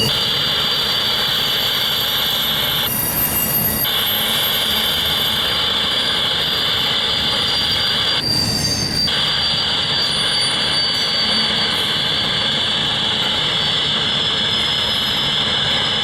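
Intermodal freight train cars rolling past with a steady high-pitched wheel squeal over a low rumble. The squeal drops out briefly twice, about three and eight seconds in.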